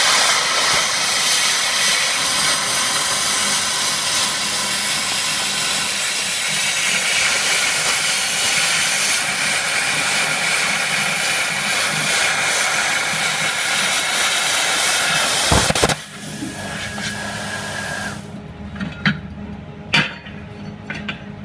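Plasma cutter torch running at about 60 amps, its arc and compressed air hissing loudly and steadily as it cuts through 8 mm steel plate. The hiss cuts off suddenly about sixteen seconds in, leaving a quieter steady hum and a few light clicks.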